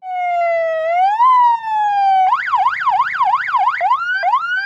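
A 200-watt electronic police siren fitted to a car, run through its tones: a slow wail falling, rising and falling again, then a fast yelp swinging up and down about three times a second, then three quick rising sweeps near the end.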